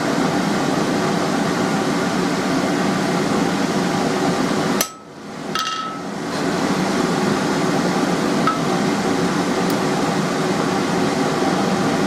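Two sharp hammer blows on a touch-mark punch, about a second apart, stamping the maker's mark into the mild-steel blade on the anvil, each with a brief metallic ring. A steady hum runs underneath.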